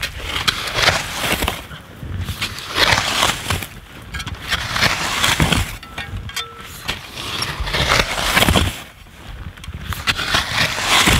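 Snow shovel scraping and crunching into packed snow in repeated strokes every second or two, digging out the inside of a quinzee snow shelter.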